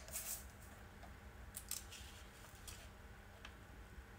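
A few faint light clicks and rustles as a clear plastic ruler and a vellum sheet are shifted into place on a cutting mat.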